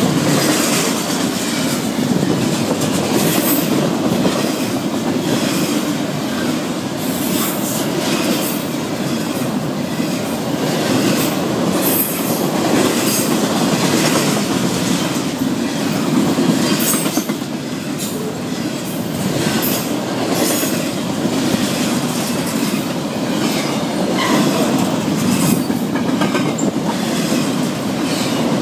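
Double-stack intermodal freight train's container well cars rolling past at speed: a steady, loud rumble of steel wheels on rail with irregular sharp clicks and clanks from the wheels and couplers.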